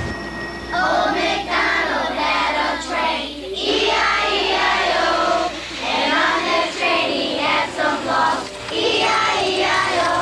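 Children singing a song with backing music.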